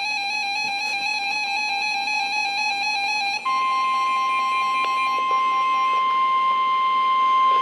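A buzzy electronic tone flickering rapidly between close pitches, then, about three and a half seconds in, a steady NOAA Weather Radio 1050 Hz warning alarm tone starts, the signal that announces a warning broadcast, here a tornado warning.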